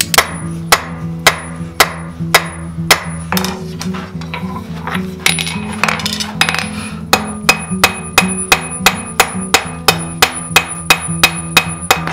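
Blacksmith's hand hammer striking steel on an anvil, ringing with each blow. The blows come about twice a second, stop for a couple of seconds around the middle, then return as a faster run of about three a second. Background music plays underneath.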